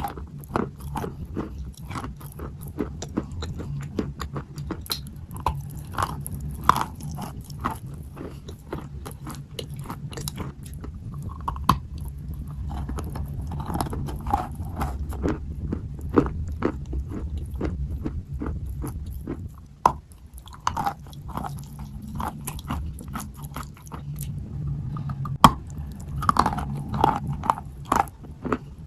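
Close-miked biting and chewing of wet white chalk: dense, irregular crunches. There is a short lull about two-thirds of the way through and a sharp loud crack a little later.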